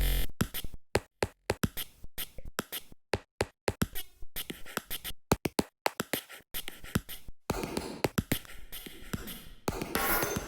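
Sampler beat made from chopped recordings of Apple Pencil and iPad Pro taps and clicks, played as a rhythm of short sharp hits. In the last few seconds a denser, scratchy layer of noise joins the clicks.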